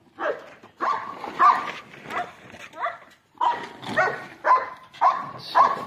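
A dog barking repeatedly, about ten short barks at a steady pace of under two a second.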